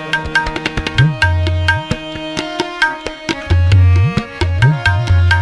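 Instrumental passage of Sikh kirtan music: tabla playing a quick run of strokes, its bass drum sliding up in pitch three times, over steady held harmonium notes.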